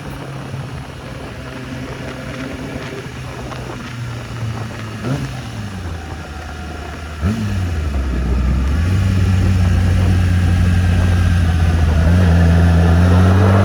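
A motor vehicle's engine idling, with a short rev about five seconds in and a sharper rev just past seven seconds, after which it runs louder and steady at a lower pitch.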